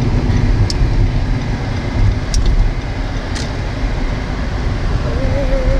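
Car cabin road and engine noise while driving: a steady low rumble with a few faint ticks.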